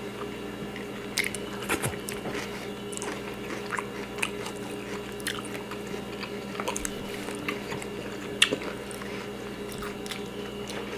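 Close-miked eating: people chewing food, with scattered wet mouth clicks and smacks over a faint steady hum.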